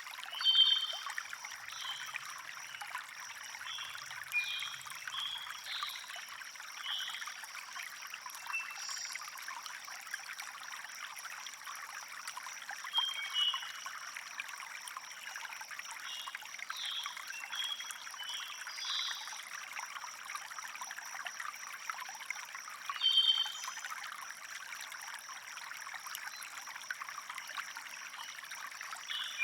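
A stream flowing steadily, with birds chirping in short scattered calls over it.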